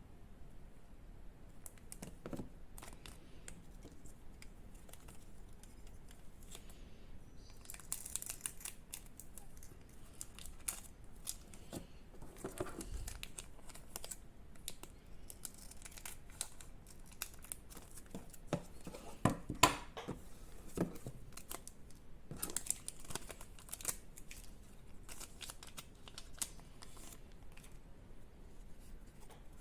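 Trading card promo packs being opened by hand: plastic wrappers torn and crinkled, with scattered short clicks and rustles, fairly quiet throughout.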